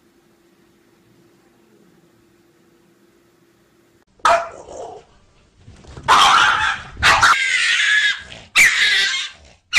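A faint steady hum, then a small dog barking loudly about four seconds in, in several stretches of about a second each.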